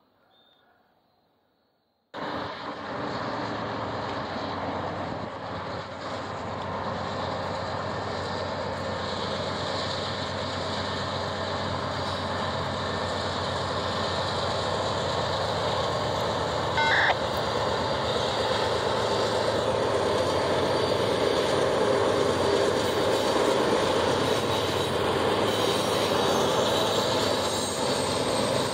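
After about two seconds of near silence, Norfolk Southern diesel freight locomotives running: a steady engine drone over the rumble of the train, slowly growing louder as the lead units come by. A brief high-pitched tone sounds about two-thirds of the way in.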